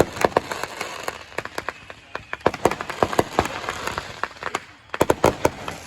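Fireworks going off in a rapid, irregular string of sharp cracks and pops, with several dense clusters of bangs.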